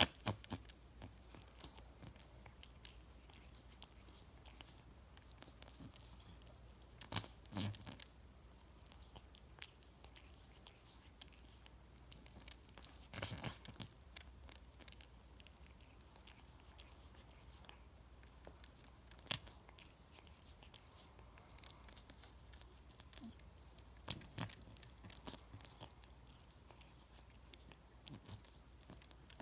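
Cat grooming itself: its tongue making wet licking and smacking clicks at an irregular pace, with a few louder spells of licking now and then.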